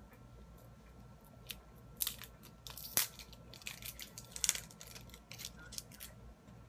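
Scattered crinkly crackles and clicks from handling a cosmetic eye and lip pencil and its packaging, the sharpest about two, three and four and a half seconds in.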